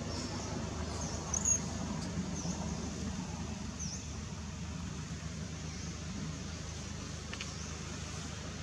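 Steady low outdoor rumble with a few short, high-pitched chirps, the loudest about a second and a half in.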